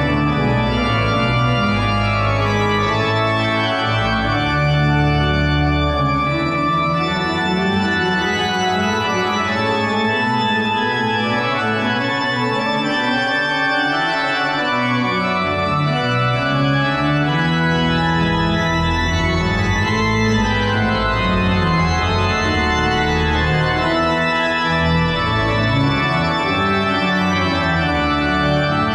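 Casavant pipe organ playing full, sustained chords over a slowly moving bass line, at a steady loudness.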